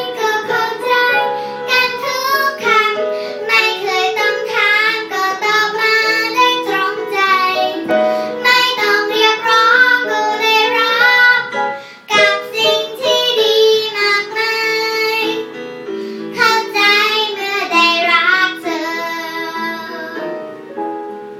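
A child singing a ballad with piano accompaniment; the voice stops near the end, leaving the piano playing on its own.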